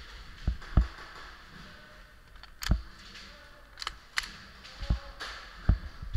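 Irregular clicks and knocks of the player's camera rattling as it shakes with his movement, about half a dozen sharp knocks with the loudest near the start and around the middle.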